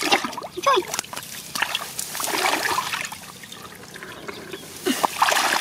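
Hands churning and slapping shallow muddy water while groping in the mud for catfish, with irregular splashes and trickling water. The splashing swells about two seconds in and again near the end.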